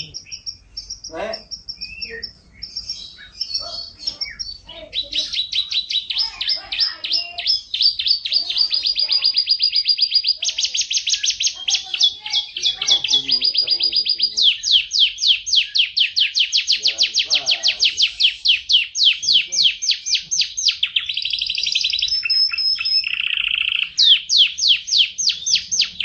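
F1 canary singing: a few varied chirps and short notes, then from about five seconds in a long, nearly continuous song of rapid high trills, each trill a fast run of one repeated note before it switches to the next.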